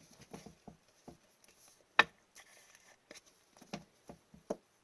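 Hockey trading cards being handled at a table: a scatter of light clicks, taps and rustles, with one sharper click about two seconds in.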